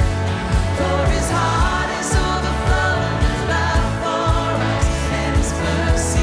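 Live worship band playing a pop-style song with a steady drum beat, bass and cymbal crashes, and a voice singing over it.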